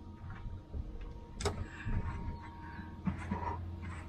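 Boat engine idling with a low steady hum, and a single sharp click about a second and a half in.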